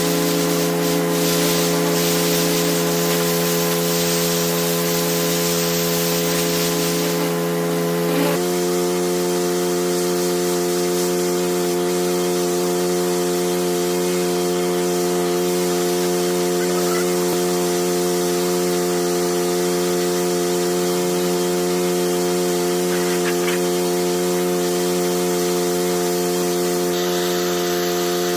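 Pressure washer running steadily, its motor drone under the hiss of the water jet. About eight seconds in, the spray hiss drops away and the machine keeps running with a slightly changed pitch.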